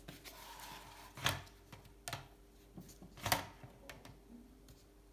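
A few light clicks and knocks, the two loudest about two seconds apart, with faint rustling, as a bicycle seat post is handled on a scale for weighing.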